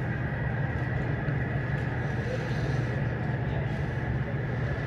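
Steady cabin hum inside a Boeing 737-700 parked at the gate: the air-conditioning and ventilation airflow, a low drone with a thin, steady high whine over it.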